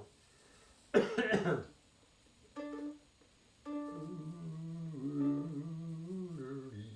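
Mandolin playing: a loud strum about a second in, then a slow melody of long held notes.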